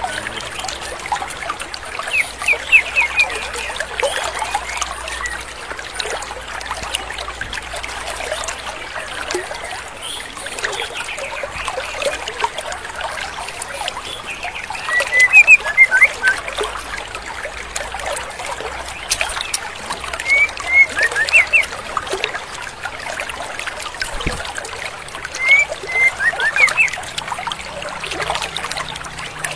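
Running stream water with the short, high chirping calls of a female white-rumped shama, coming in quick clusters of two or three every few seconds, used as a lure call to rouse young males.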